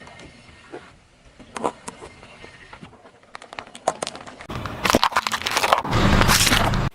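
A car tyre rolling over and crushing crunchy objects: scattered crackles and snaps, then from about halfway through a much louder rumble of the car rolling, with cracking as things break under the tyre.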